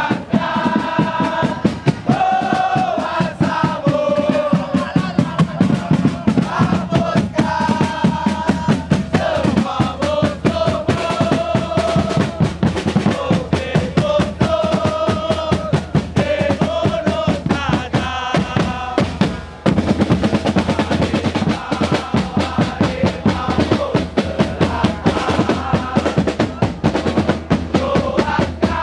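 Football supporters' crowd singing a chant in unison over a rapid beat of snare and bass drums, with a brief break about two-thirds of the way through.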